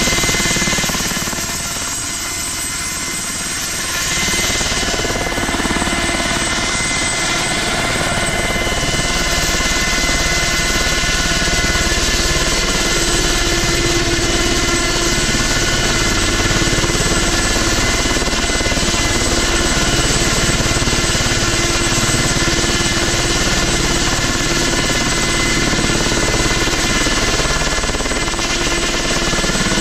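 Ultrasport 496 light helicopter running on the ground: engine and turning main rotor, steady throughout, with a brief dip in level for a couple of seconds near the start.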